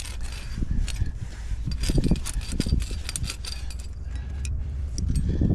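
Metal climbing gear, carabiners and protection on a harness, clinking and scraping in a run of irregular clicks, over a steady low rumble.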